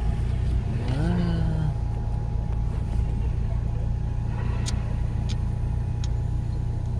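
Steady low rumble of a car being driven. A short rising voice-like sound comes about a second in, and a few sharp clicks come late on.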